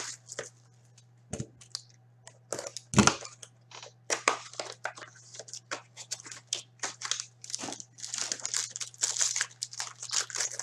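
Crinkling and tearing of wrapper plastic as a sealed hockey card box and its packs are opened by hand, in many short crackly rustles. A dull thump about three seconds in, with a smaller one before it.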